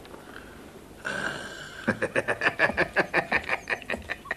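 A man chuckling: a quick run of short laughs, about five a second, starting about two seconds in.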